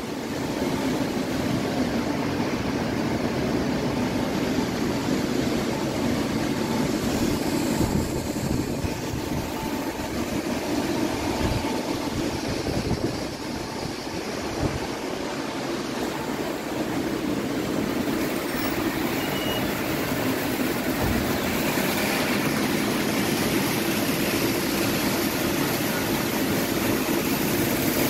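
Steady rumbling drone of a large underground train-station concourse, mostly ventilation and machinery noise, with irregular low buffeting on the microphone.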